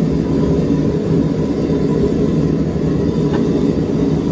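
Gas forge running flat out at about 30 PSI, the hottest it has been run: a loud, steady roar, which the smith calls absolutely screaming. A faint tick comes about three seconds in.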